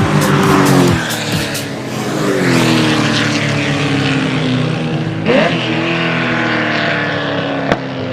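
Racing car engine sound at high revs, its pitch falling twice as the revs drop, with tyre-squeal-like noise and a sharp click near the end.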